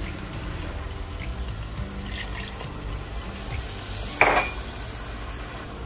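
Frying moong dal sizzling in a pot as a glass of water is poured in, with one sharp clink about four seconds in.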